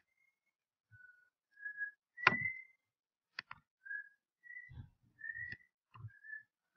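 A person whistling a string of short, clear notes that hop between a few pitches, mixed with a few sharp clicks and knocks. The loudest knock comes a little over two seconds in.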